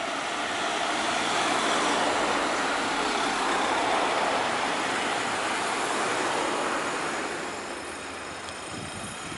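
A motorhome drives past close by: engine and tyre noise swells over the first couple of seconds, holds, then fades away.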